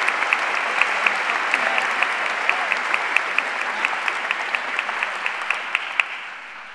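Audience in a large hall applauding, with one pair of hands clapping close by at about five claps a second above the rest. The applause dies away near the end.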